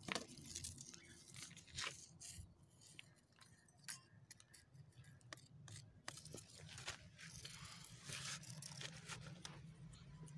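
Faint crackling scuffs and scattered clicks of movement over a gritty dirt floor.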